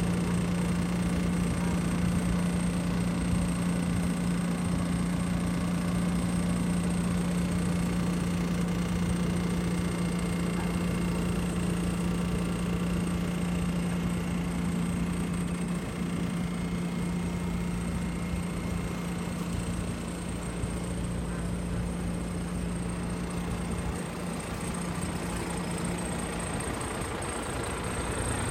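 Case A7000 sugarcane harvester's diesel engine idling steadily, with a low hum that fades out near the end and a thin high whine.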